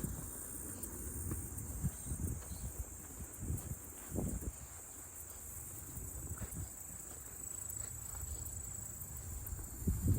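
Steady high-pitched drone of crickets or other insects, with irregular low thumps and rustles that are loudest about four seconds in and near the end.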